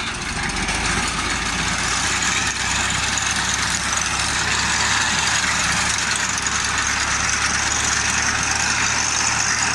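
Tractor diesel engine running steadily as it pushes a front-mounted reaper through standing wheat, getting a little louder over the first two seconds.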